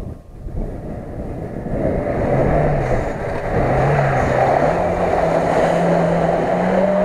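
An off-road 4x4's engine revs as it drives into a pond. Its pitch rises and falls from about two seconds in, then holds higher, over a steady rushing noise.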